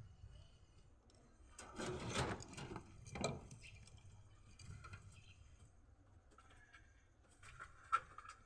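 Faint handling sounds in a pigeon loft: a brief rustle about two seconds in, a short knock a second later, and a sharp click near the end.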